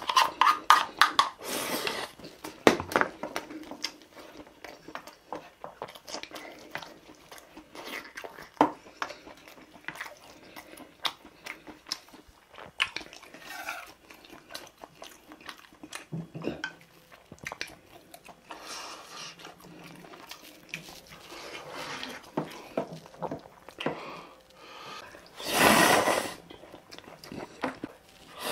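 Close-up eating sounds: chewing and smacking mouthfuls of pork stir-fried rice, with many small clicks. Near the end, a loud slurp of ramen noodles.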